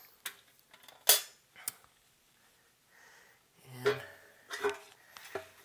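A few sharp knocks and clicks as a metal amplifier chassis is shifted and set down on a workbench, the loudest about a second in.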